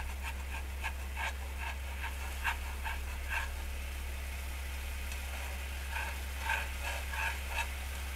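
Blue sugar syrup simmering in a small nonstick frying pan over a gas flame while a wooden chopstick stirs it, heated to thicken into candy. Irregular small ticks, about three a second, come in two runs over a steady low hum.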